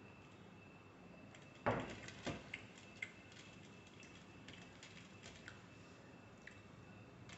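Fingers tearing flaky Kerala parotta on a stainless steel plate: scattered small clicks and scrapes against the metal, with a louder knock about one and a half seconds in and a few lighter ones just after.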